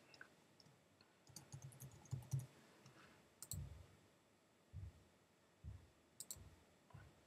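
Faint computer keyboard typing: a quick run of keystrokes as a word is typed, followed by a few separate single clicks about a second apart.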